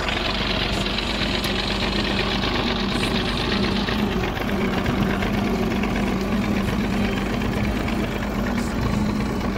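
Massey Ferguson tractor's diesel engine running steadily under load, pulling a trailer piled with dry maize stalks.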